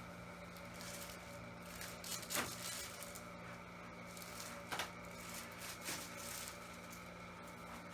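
Faint rustling and three brief soft knocks or creaks, about two seconds in, near the middle and a second later, from hands and a body shifting on a padded chiropractic treatment table, over a steady low electrical hum.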